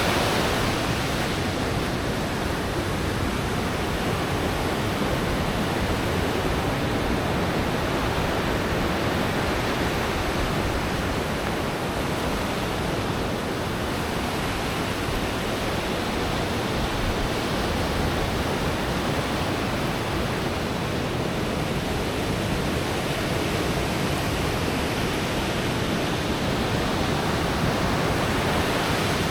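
Ocean surf breaking and washing onto a sandy beach: a continuous roar of noise that swells and eases only slightly, with no distinct single wave crashes.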